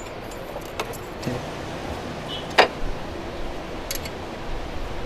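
Scattered metallic clicks and clinks of hand tools at work on the engine's valve tappet adjusters, the loudest a sharp click about two and a half seconds in.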